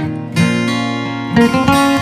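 Background music played on acoustic guitar, with a new strummed chord about half a second in and further note changes near the end.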